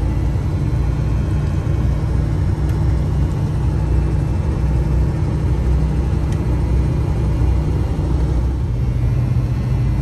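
GMC Sports Coach motorhome driving along, heard from inside the cab: a steady low rumble of engine and road.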